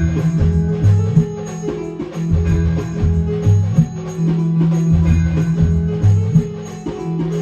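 A Khandeshi street band playing an instrumental passage, with repeated low bass notes over a steady drum beat and jingling percussion.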